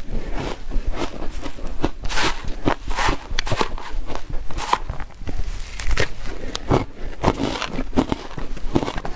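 Close-up chewing of powder-coated soft shaved ice: many quick, irregular crunches and crackles, several a second.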